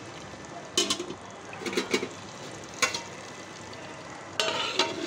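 Chicken sizzling in a thick onion masala in a metal pot while a spoon stirs it, scraping against the pot several times.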